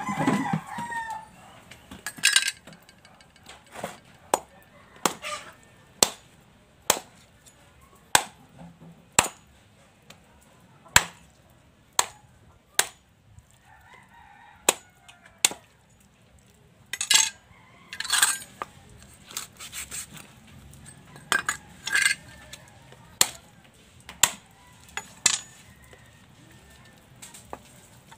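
A large cleaver chopping raw pork knuckles on a wooden log chopping block: sharp, heavy chops about once a second. A rooster crows several times in the background.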